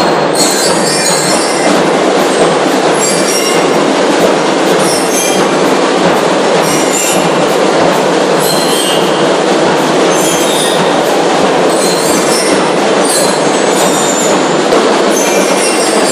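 School drum and lyre corps playing: marching drums with bell lyres ringing over them, loud and steady.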